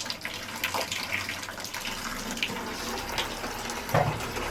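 Water running steadily from a shower fed by a newly fitted instant electric water heater, with a few small clicks and one louder knock about four seconds in.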